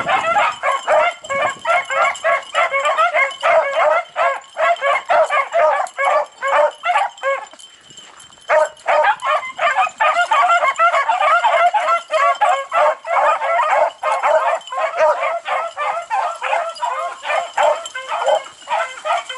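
A pack of beagles in full cry: many hounds baying over one another as they run a rabbit's track. There is a brief lull about eight seconds in, then the cry picks up again.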